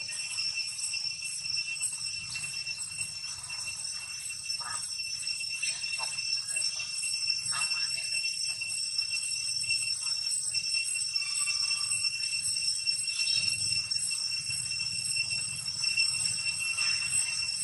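Insects droning steadily at a high pitch, with a few faint short chirps or squeaks partway through.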